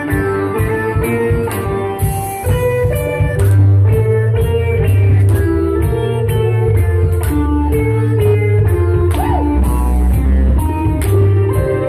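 Live psychedelic rock band playing: electric guitar and electric bass over a drum kit, with a steady beat and a heavy bass line.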